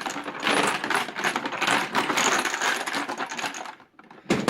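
Tekton socket set case shaken hard, the chrome sockets rattling and clicking fast in the plastic case; the sockets clipped into the lid stay put. The rattle stops about three and a half seconds in, followed by a single knock near the end.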